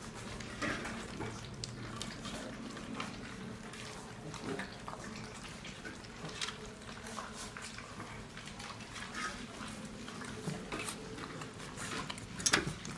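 Several 29-day-old Mudhol hound puppies lapping and chewing soft food from a stainless steel bowl: irregular wet slurping and smacking with small clicks.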